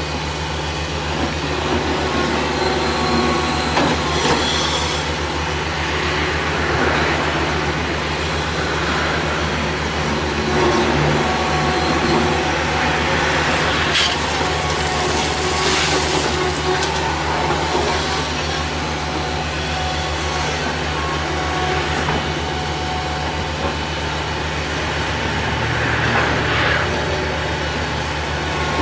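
Caterpillar crawler excavator's diesel engine running with a steady low hum as the bucket digs and scrapes through gravel, with a sharp knock about halfway through.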